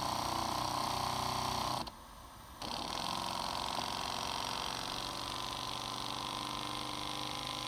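Microcosm M29 two-cylinder model steam engine running steadily on steam, its valve gear set to reverse. The sound drops out briefly about two seconds in, then carries on unchanged.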